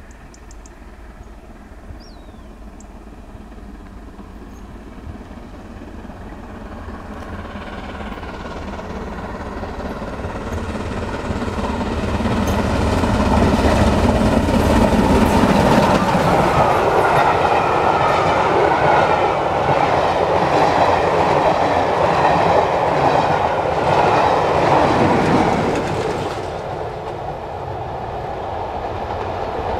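Steam-hauled passenger train passing at speed: the rumble of the locomotive and coaches builds up, peaks with wheels clattering over the rail joints, then drops away sharply near the end as the train goes by and recedes.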